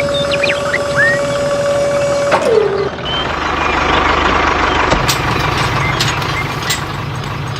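A small motor whining at a steady pitch, which sags lower and stops about two and a half seconds in. Then a noisier mechanical rumble with scattered clicks takes over.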